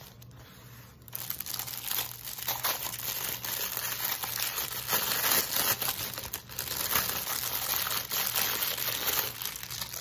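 Clear plastic wrapping crinkling and rustling as it is handled and pulled off a resin doll head. The dense crackling starts about a second in and eases off near the end.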